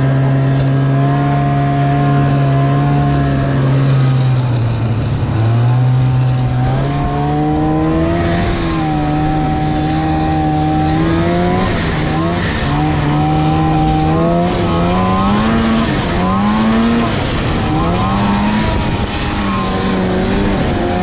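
Snowmobile engine running while riding. Its pitch holds steady for about four seconds, dips, then rises and falls again and again with the throttle.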